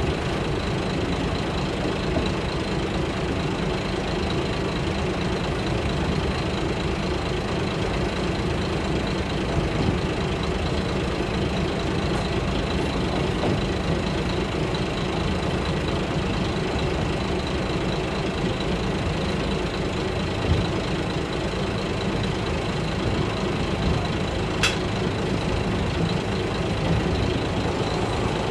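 Kashima Rinkai Railway 6000 series diesel railcar under way, heard from inside the passenger cabin: a steady engine drone with running noise from the wheels on the rails. A single short sharp click near the end.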